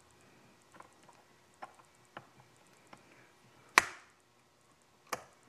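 Light clicks and knocks from adjusting a chainsaw's chain tension, with the tensioning screw turned clockwise to tighten a loose chain. A sharp metallic snap with a short ring about four seconds in, and another sharp click a little after five seconds.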